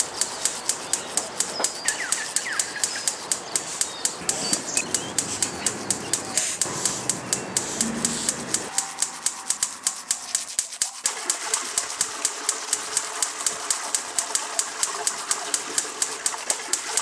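Steady, even ticking, about three clicks a second, over a constant background hiss.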